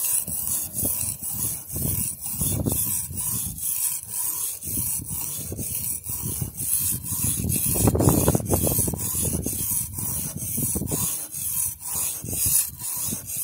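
A butter knife's steel blade being stroked back and forth on a cheap whetstone wetted with a sewing-oil and water mixture: a steady wet scraping that swells and fades with each stroke, about one a second, as a new edge is ground onto the blade.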